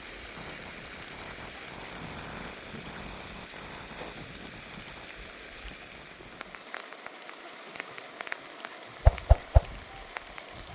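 Rain falling as a steady hiss. About six seconds in the hiss thins out, leaving scattered sharp drips and taps, with a few louder knocks near the end.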